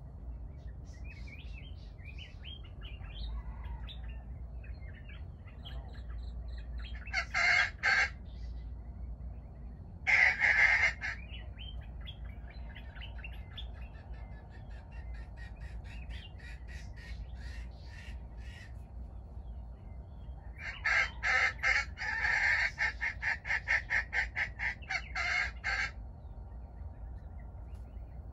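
Jungle fowl calling: two short loud calls about 7 and 10 seconds in, then a longer run of rapid pulsed calls from about 21 to 26 seconds. Small birds chirp softly in between.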